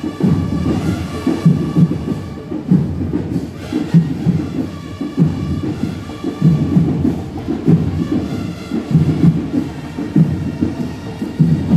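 Marching band playing: heavy drums pound out a beat about once a second, with a higher sustained melody line above.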